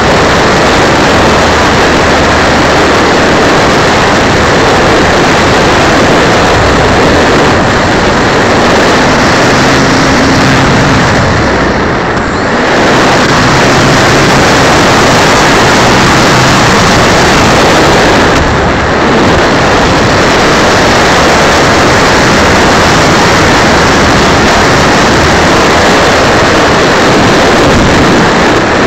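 Loud, steady rush of wind and propeller noise on board a Dynam Pitts RC plane in flight, heard through its keychain camera's microphone. The level dips briefly twice, once near the middle and once about two-thirds through.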